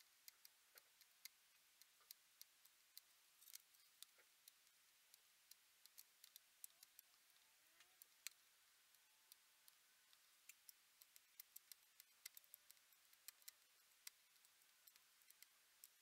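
Very faint, irregular crackling and clicking of solder paste flux under a soldering iron tip as it is drawn along a chip's pins, a few small pops a second over near silence.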